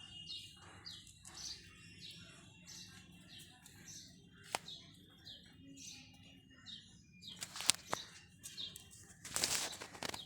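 Small birds chirping over and over in short high calls, with a few sharp clicks and a brief hiss near the end.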